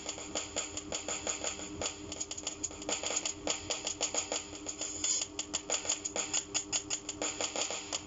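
Electronic drum sounds triggered by PocketDrum air drumsticks: a fast, even run of hi-hat strikes, over a steady low hum from a running washing machine.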